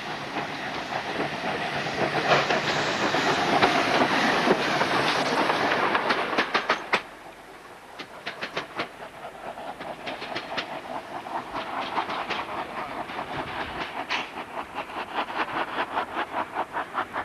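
Railway wagons rolling on track, wheels clacking over rail joints. A loud rushing noise for the first seven seconds drops away, leaving quieter rolling with runs of regular clacks.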